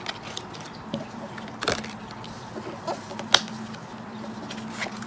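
A deck of tarot and oracle cards being handled, gathered and laid down, giving a few short taps and clicks, the sharpest about two-thirds of the way through, over a steady low hum.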